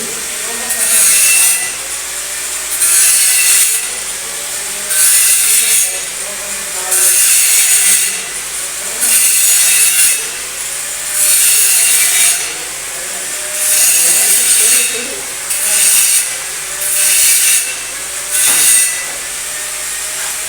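TIG welding arc on a pipe root pass, hissing in regular surges about every two seconds that come a little closer together near the end.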